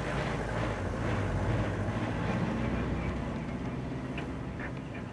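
Motor vehicle engines running: a steady low rumble under outdoor noise, with a few faint ticks near the end.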